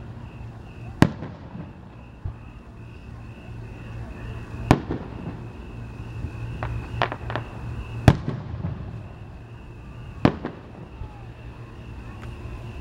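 Aerial fireworks shells bursting: four sharp booms a few seconds apart, with a quick run of three smaller cracks between the second and third.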